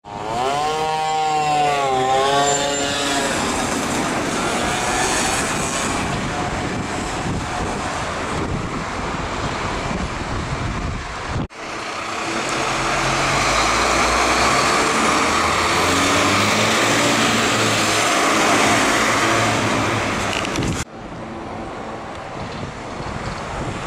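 A fire engine siren wails, sweeping down and up, in the first three seconds. Then comes the diesel engine of a 1998 Dennis Sabre fire engine running as it drives by, among dense traffic noise. The sound cuts abruptly twice, and after the second cut it is quieter street traffic.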